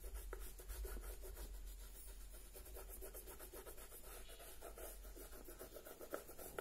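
Blue oil pastel rubbed lightly back and forth on paper: a faint, scratchy rubbing in many quick short strokes.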